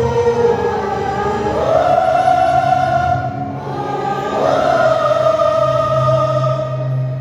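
Gospel vocal group singing a worship song in harmony, holding long notes that step up in pitch twice, over a steady low accompaniment.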